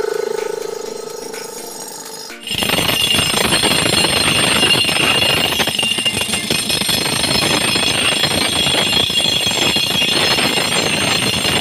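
Pneumatic rock drill, run off a compressor's air hose, hammering into granite bedrock. It starts suddenly about two and a half seconds in and keeps up a loud, fast chatter with a steady high whine.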